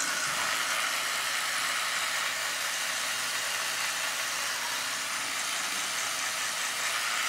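Electric toothbrush running during tooth brushing, a steady buzz.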